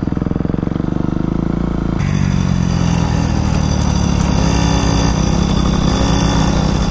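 Dirt bike engine running steadily at low speed; about two seconds in the sound cuts abruptly to a Yamaha PW50 mini bike's small two-stroke engine running steadily, with a busier, denser buzz.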